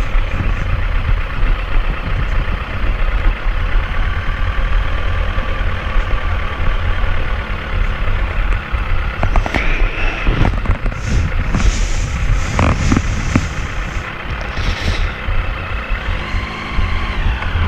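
Sport motorcycle engine running at low speed, with wind rumbling on the microphone. Near the end the engine note rises as the bike speeds up.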